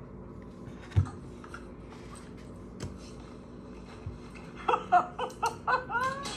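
Animal-clip audio from a tablet's speaker: a sharp thump about a second in and a few light knocks, then a quick run of short laughs near the end.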